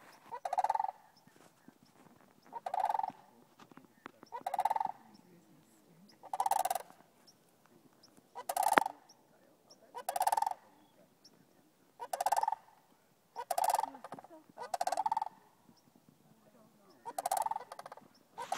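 Sandhill cranes giving their rolling, trilled calls, about ten in a row, one every one and a half to two seconds, as one group calls to another. A single sharp click sounds about nine seconds in.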